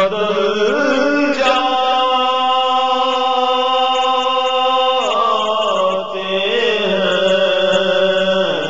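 Solo male voice chanting an Urdu naat, holding long notes with ornamented turns between them over a steady low drone.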